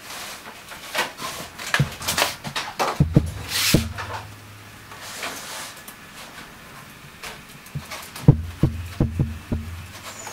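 Plastic strawberry punnets handled and set down on a bench weighing scale: scattered clicks, knocks and rustles, busiest a few seconds in and again near the end. A low hum sits under two of these stretches.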